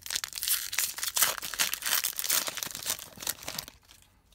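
Foil wrapper of a Panini Prizm baseball card pack being torn open and crinkled by hand, a dense crackling that stops shortly before the end.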